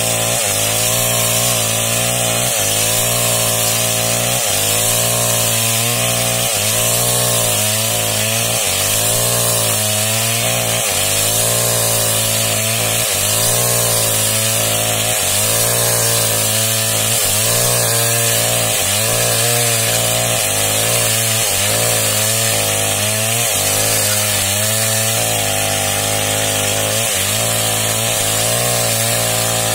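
Small Stihl chainsaw running under load as it cuts lengthwise along a log. The engine pitch dips and recovers about every one and a half to two seconds as the chain bites and the bar is worked along the cut.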